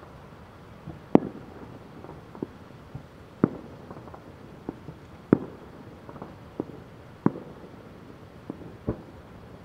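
Distant aerial firework shells bursting: about ten sharp bangs at irregular intervals, roughly one a second, each with a short trailing echo. The loudest come about a second in and around three and a half, five and seven seconds in.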